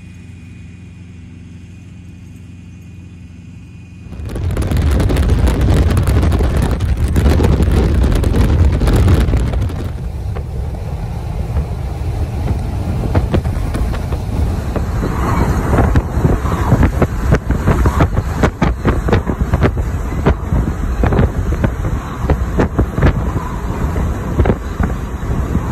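Wind and road noise of a moving semi-truck, loud from about four seconds in, after a quieter steady hum. In the second half, wind through an open cab window buffets the microphone in rapid gusts.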